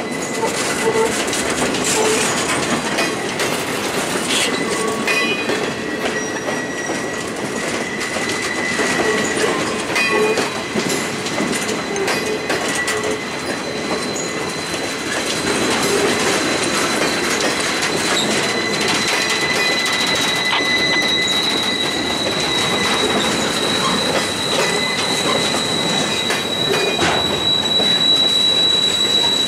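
Empty railroad flatcars rolling past close by: steady steel-wheel rumble on the rails with irregular clicks and clacks, over a thin, high wheel squeal that grows louder in the second half.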